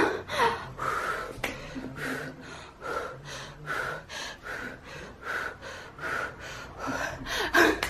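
A woman breathing hard during an ab workout: quick, short, rhythmic breaths, about three a second, with a louder gasp near the end.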